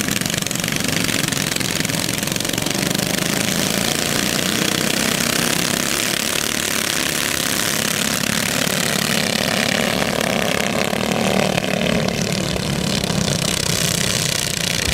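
Several small go-kart engines running together as the karts race, a steady mechanical sound throughout.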